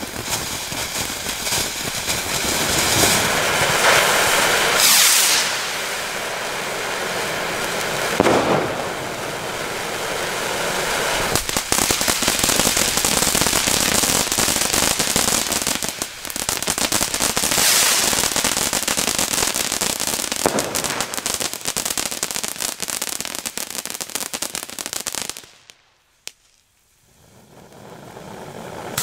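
Firework fountain (a GBV Weco Red Star 5) spraying sparks: a loud, dense hissing with crackle and a few louder surges. Near the end it dies away almost to nothing for about a second, then hisses up again.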